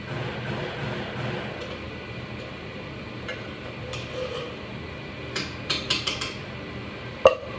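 Kitchen clatter: a quick run of light clinks of dishes and utensils about five to six seconds in, then one sharp, louder clank with a brief ring near the end.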